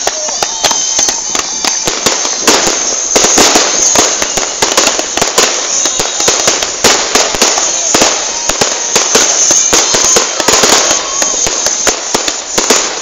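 Aerial fireworks display: a continuous barrage of crackling and popping reports, many a second, loud and irregular throughout.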